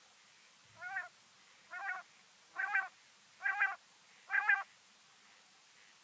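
Common quail calling: five short, wavering calls a little under a second apart, each louder than the one before.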